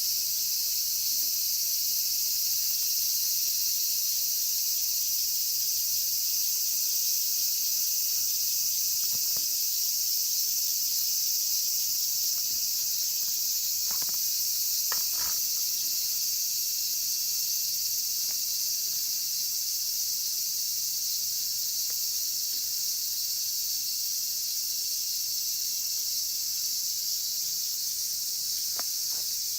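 Cicadas singing: a loud, unbroken high-pitched chorus. A few faint clicks come through about halfway in.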